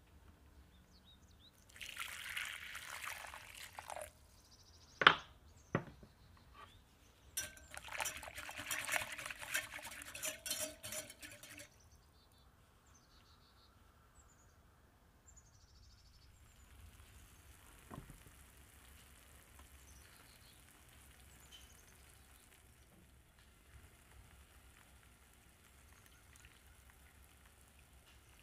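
A spoon stirring a liquid mixture in a bowl, in two spells of a few seconds each, with two sharp clinks of utensil on bowl between them; after that only faint background noise.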